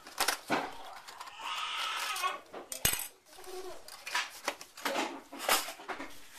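Clinks and taps of a spoon and small containers being handled, with one sharp click about three seconds in.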